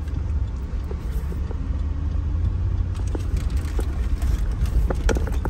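Chevrolet Suburban 4x4 driving slowly on a rough dirt road, heard from inside the cabin: a steady low rumble from engine and tyres. Scattered light knocks and rattles come in over the second half.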